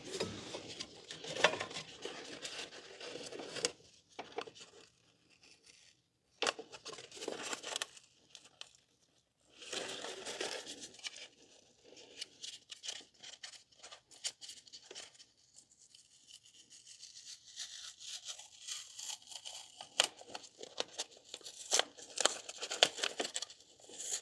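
Blue painter's tape peeling off the cylinder head and shop towels rustling and crumpling as they are folded up, in uneven bursts with a couple of short pauses.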